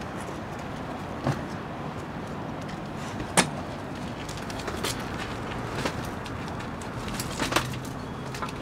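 A few sharp knocks and clatters as a ladder is handled and set in place, over a steady background rumble. The loudest knock comes about a third of the way in.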